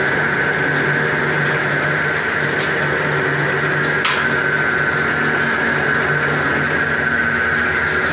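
Semi-automatic noodle machine running steadily, its steel rollers turning and pressing a sheet of dough, with a constant high whine over a low hum and a couple of faint ticks.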